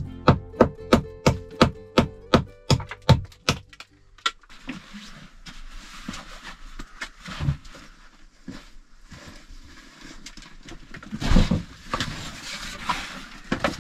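A hammer driving nails into pine lining boards: about a dozen sharp blows, roughly three a second, then it stops. After that comes rustling and handling of nylon stuff sacks and gear on a wooden bench, louder near the end.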